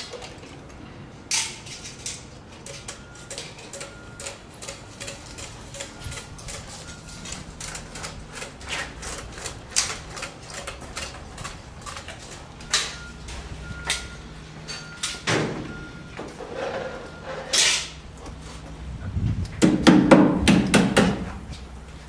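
Construction-site sounds: scattered sharp knocks and clicks over a faint steady low hum, with a louder, busier stretch of clatter near the end.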